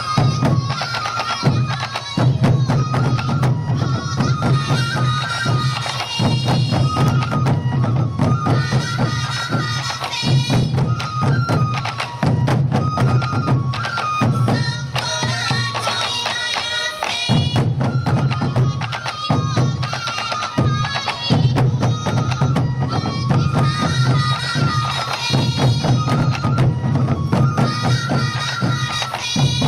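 Morioka Sansa Odori festival music: taiko drums beating a steady, driving rhythm under a melody played on yokobue bamboo transverse flutes.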